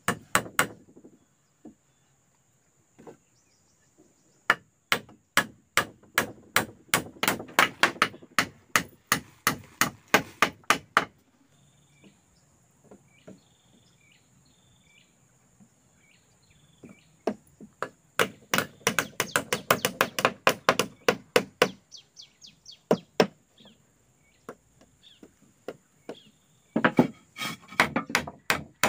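Hammer blows on wood in quick runs of about three strokes a second, with pauses between the runs, as the raft house is built.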